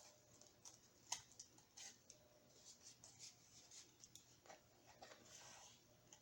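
Faint, scattered clicks and rustles of cardboard and paper being handled and worked by hand, with a sharper click about a second in.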